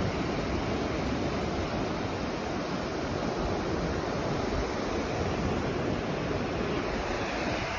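Steady rush of ocean surf, an even wash of noise with no breaks.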